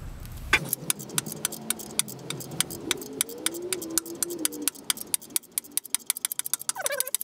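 Small socket ratchet clicking steadily as it slowly threads a stud into the exhaust manifold, the clicks coming much faster over the last two seconds.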